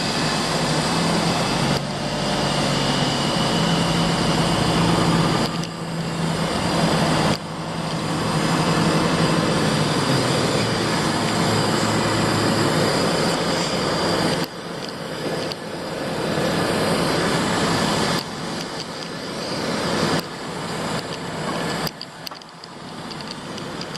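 Heavy construction machinery engines running steadily, with loud mechanical noise that dips and comes back several times as the machines work.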